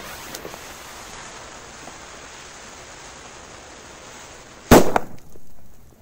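A large firecracker's fuse hisses faintly for about four and a half seconds, then the firecracker goes off with a single sharp, loud bang, followed by a short trailing rumble.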